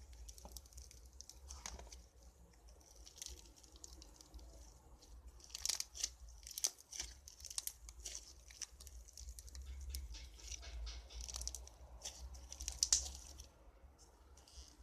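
Slime being squeezed, stretched and pressed by hand, giving irregular sticky crackles and small pops, thickest about six seconds in and again near thirteen seconds.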